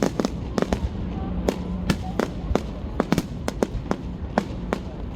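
Fireworks display going off: an irregular string of sharp bangs and crackles, about three or four a second and thickest around the middle, over a low rumble and faint crowd voices.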